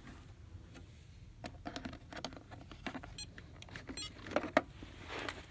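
Plastic clicks and clatter of a robot vacuum's dustbin being unlatched and pulled out by hand, with two short runs of rapid ticking midway and a couple of louder knocks about four and a half seconds in.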